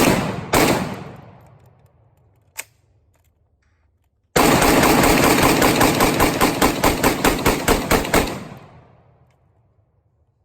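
Draco AK-pattern pistol in 7.62x39 firing: two single shots at the start, a small click a couple of seconds later, then a rapid string of shots, about seven a second, for about four seconds, each ringing out with a long echo.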